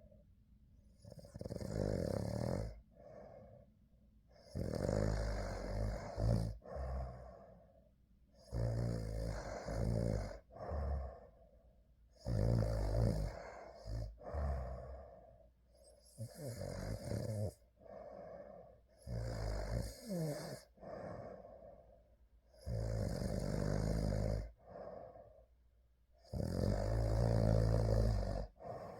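A person snoring in real sleep: a rattling snore on each breath, about every three and a half seconds, each followed by a shorter, quieter breath.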